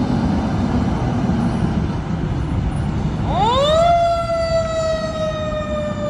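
Ladder fire truck's diesel engine rumbling as it pulls out, then its siren winds up quickly about three seconds in and slowly falls in pitch.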